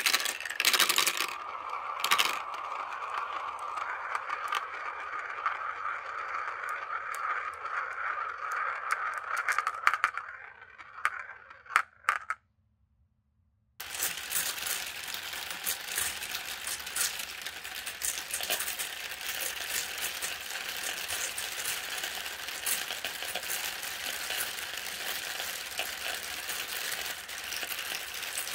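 Glass marbles rolling round a plastic spiral bowl of a marble run, a steady whirring roll with scattered clicks that ends in a few sharp clacks as they drop through the centre hole. After a short silence comes a dense, steady clatter of many glass marbles swirling and knocking together in a plastic funnel.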